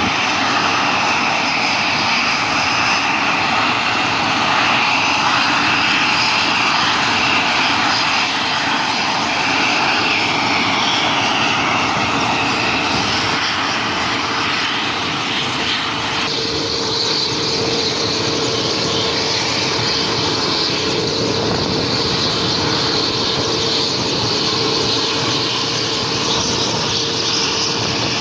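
Mil Mi-17 helicopter's twin turboshaft engines running with the main rotor turning on the ground before take-off: a loud, steady turbine whine over rotor and exhaust noise, with a steady lower hum. The whine changes pitch abruptly about halfway through.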